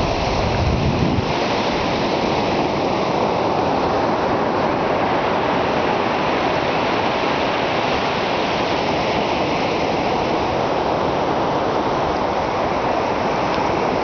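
Pacific Ocean surf washing up the beach: a steady rushing, with a brief low rumble about a second in.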